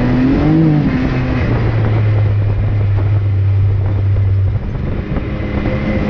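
Off-road vehicle engine running steadily while under way on a dirt trail. Its pitch bends up and down briefly in the first second, and the drone dips about four and a half seconds in before picking back up near the end.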